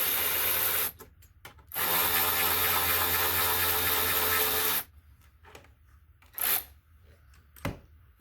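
Power drill spinning out a 6 mm hex-head front brake caliper bolt: a short run of about a second, then a longer steady run of about three seconds, followed by a few light clicks and knocks of the tool and parts being handled.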